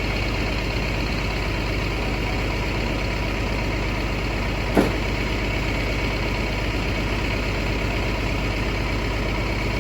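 Transit bus engine idling steadily, with one short sharp knock about halfway through.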